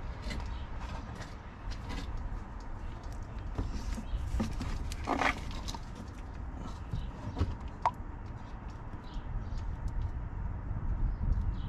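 Handling of a plastic funnel and a motor oil bottle, with scattered clicks and taps and a brief louder rustle about five seconds in. Near the end, motor oil glugs from the bottle through the funnel into the engine's oil filler. A low outdoor rumble runs underneath.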